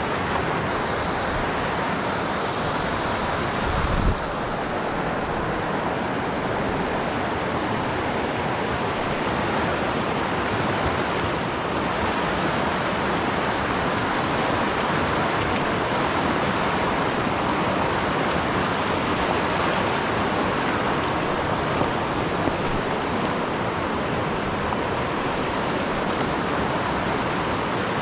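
A fast mountain stream rushing over rocks in steady riffles and small rapids. There is a brief low bump about four seconds in.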